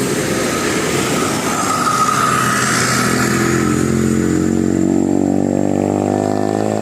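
Bus engine accelerating past, with traffic noise in the first half; from about halfway through the engine note climbs steadily in pitch as it pulls away.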